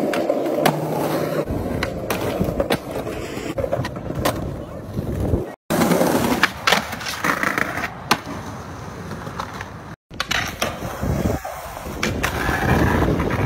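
Skateboard wheels rolling on concrete and asphalt, with many sharp clacks from the board popping, hitting ledges and landing. The sound cuts out abruptly twice, about five and a half and ten seconds in.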